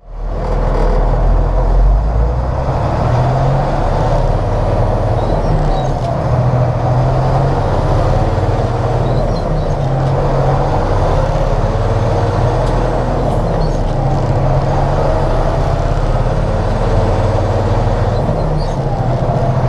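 John Deere 9500 combine running steadily under a constant, even mechanical hum.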